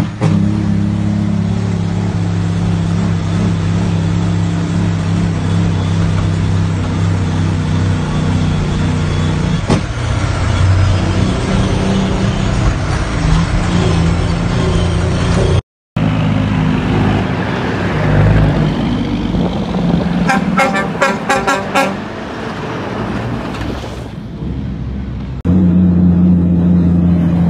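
Heavy diesel truck engine running steadily, heard from inside the cab, its note shifting around ten seconds in. After a cut, another truck is under way with a quick run of short horn toots, then a third engine picks up.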